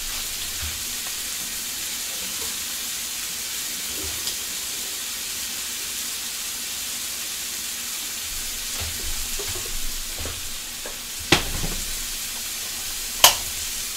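Food sizzling steadily in a skillet on the stove. Two sharp knocks come near the end.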